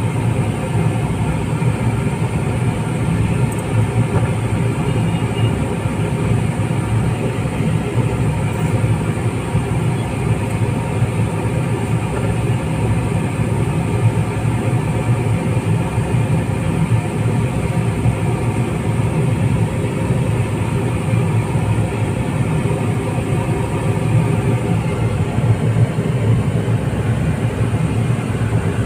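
A car's engine and road noise heard from inside the cabin while driving: a steady low rumble.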